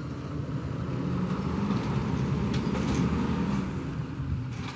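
Garbage truck's diesel engine running, swelling a little about halfway through and easing off again.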